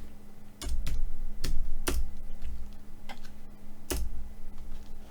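Scattered clicks of a computer keyboard and mouse, about six separate strokes spread unevenly, over a faint steady hum.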